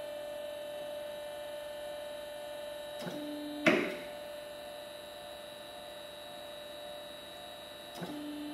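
Hydraulic power unit's electric pump running with a steady hum. A little over three seconds in, a brief lower tone is followed by one sharp clack as the hydraulic cylinder cycles. The same lower tone comes back near the end.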